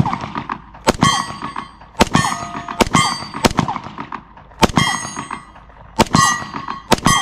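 Gen 5 Glock 29 10mm pistol firing a string of about seven shots, roughly one a second, each followed by the bright ring of a struck steel target.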